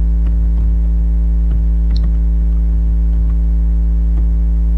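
Steady electrical mains hum with a stack of even overtones, loud and constant on the recording. Faint, irregular computer keyboard clicks sound over it as code is typed, one sharper click about two seconds in.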